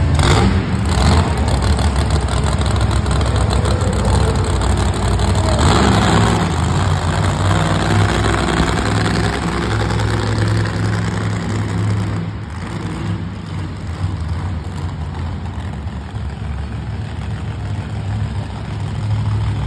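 Monster truck engine running with a loud, deep, steady rumble. There is a surge about six seconds in, and the engine eases off somewhat after about twelve seconds.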